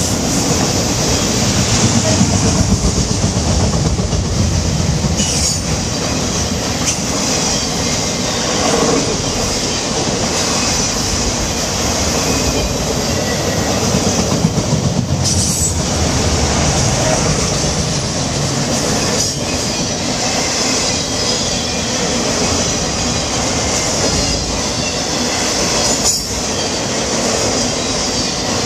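Autorack freight cars rolling past close by: a steady loud rumble of steel wheels on the rails with a high hiss over it, and a few sharper clacks from the wheels at intervals.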